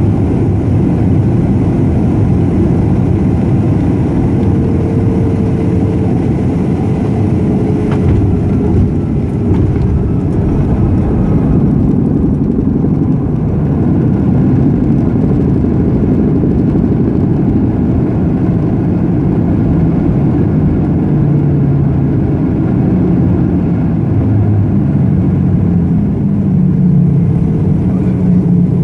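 Cabin noise of a Boeing 737-300 landing: a loud, steady rumble of engines and airflow, with a brief knock about eight seconds in as the wheels touch down. Then comes the rumble of the landing roll along the runway with the ground spoilers raised.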